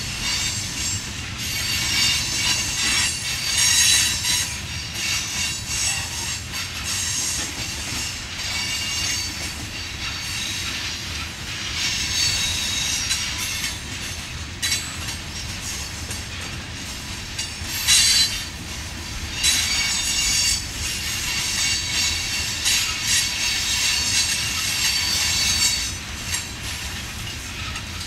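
Empty rock hopper cars rolling by, their steel wheels squealing in high shifting tones over a steady low rumble of wheels on rail. The squeal comes from wheel flanges grinding on a curve. A few sharp clanks sound along the way, the loudest about 18 seconds in.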